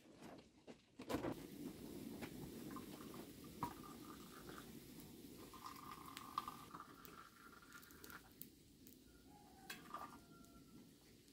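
Tea poured from a metal teapot into small glass tea glasses: a thin trickle with a faint ringing tone as the glasses fill, and a few light clicks of glass and metal.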